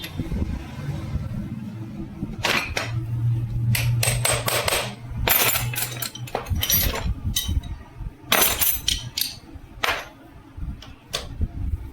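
Irregular hammer blows on metal, about fifteen sharp strikes in quick clusters with a metallic ring, as motorcycle gearbox parts are knocked apart. A steady low hum sounds under the first half.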